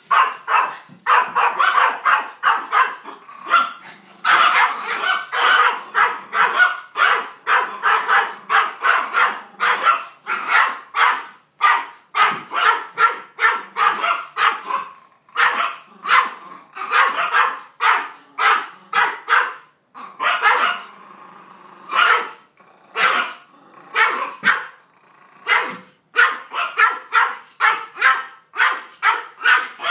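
Maltese barking nonstop in short, sharp barks at about three a second, with only brief pauses: agitated barking at a cardboard cutout of two dogs that it takes for a strange dog.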